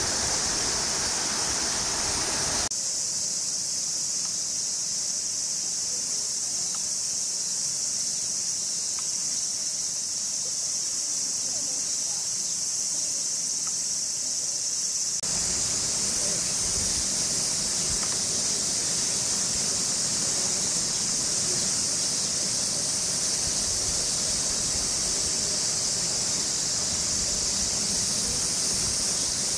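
Summer cicadas in full chorus, a steady high-pitched drone that holds unbroken throughout.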